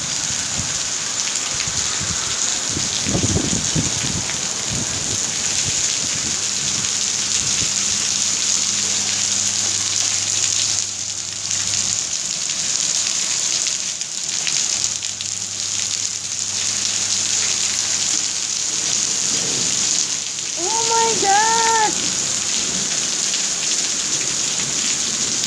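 Heavy rain mixed with hail pelting a wet tiled patio: a steady hiss, with a brief low rumble about three seconds in.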